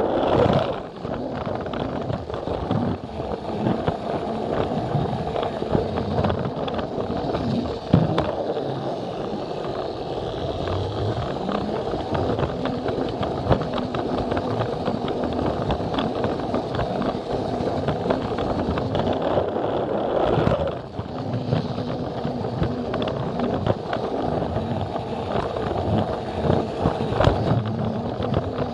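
Plarail battery-powered toy train running along plastic track, its small electric motor whirring under a dense, rapid clatter of wheels rolling over the track joints.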